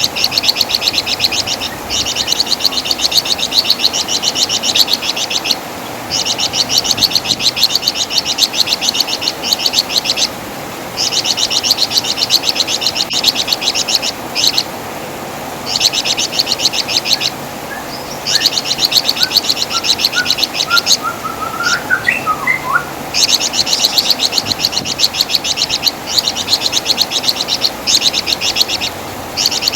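Flamboyan (wergan jawa) bird giving its loud, rapid, high chattering song. The notes come in dense bursts of a few seconds each, separated by short pauses. A few fainter, lower whistled notes sound about two-thirds of the way through.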